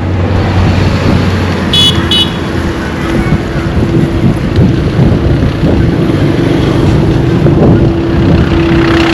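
Road traffic rumbling past, with a vehicle horn giving two short beeps about two seconds in. A steady hum, like an engine held at one speed, sets in about two seconds in and continues.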